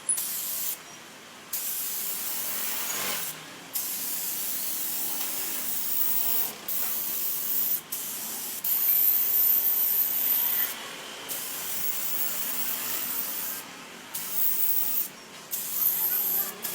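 Compressed air hissing out of a nozzle in repeated bursts, each from about a second to several seconds long, with short stops between them.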